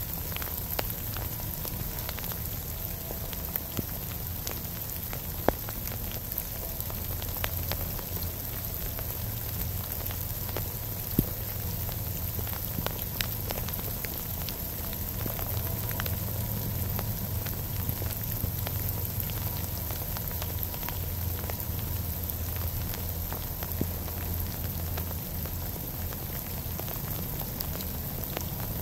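Steady rain falling, with scattered sharp ticks of drops striking close to the microphone and a low rumble underneath.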